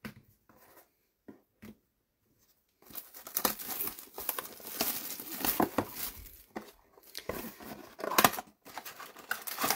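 A trading-card pack wrapper being torn open and crinkled by hand. It is quiet with a few small clicks at first, then dense crackling and tearing starts about three seconds in and keeps going.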